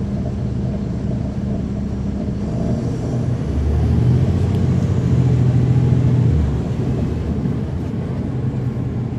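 Caterpillar C13 ACERT inline-six diesel engine of a NABI 40-foot transit bus, heard from the rear seats inside the bus as it drives. The engine note gets louder for about three seconds in the middle, then settles back.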